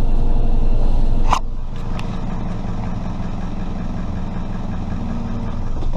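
Toyota RAV4's 3S-FE four-cylinder engine idling in drive at a stop, with a loping exhaust note from a badly leaking flex pipe in the downpipe. A click about a second and a half in, after which the sound is steadier and a little quieter.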